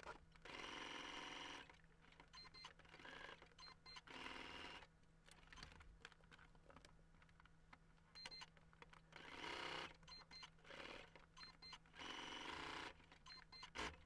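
Electric sewing machine stitching in several short runs of about a second each, with pauses between them. The runs are faint.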